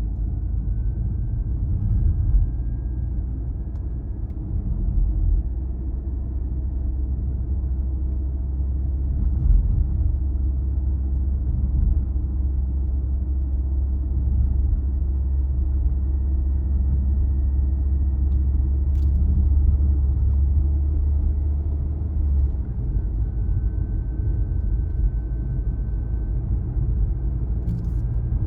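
Car driving: a steady low rumble of the running car and its tyres on the road. A faint whine slowly rises in pitch, drops, then rises again. The deepest part of the rumble eases off about three-quarters of the way through.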